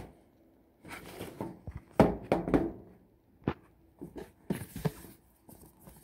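Plastic tub of Cascade Platinum dishwasher pods being handled and opened: rustling and several sharp plastic clacks and knocks, loudest about two seconds in, as the hinged lid is flipped open and a hand reaches in among the pods.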